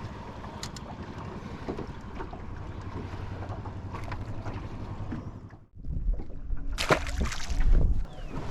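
Wind buffeting the microphone over a steady background of boat and water noise. After a sudden brief dropout about two thirds of the way in, louder rustling and sharp knocks follow.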